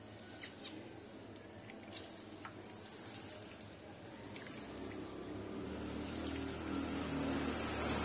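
Small pet birds, budgies and finches, giving short scattered chirps. From about halfway a low steady hum comes in and grows louder.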